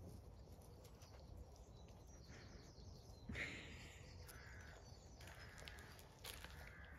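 Near silence outdoors, broken by a few faint short animal calls, the clearest about three seconds in.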